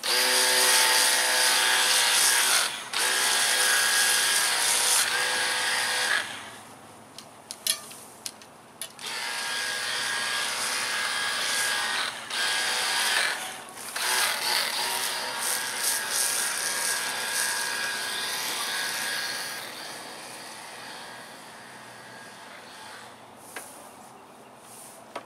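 A Hart battery-powered pressure cleaner runs on its low setting, spraying soap foam through a foam-cannon bottle: a steady motor whine over a hissing spray. It comes in several long trigger pulls with short breaks and dies down about twenty seconds in.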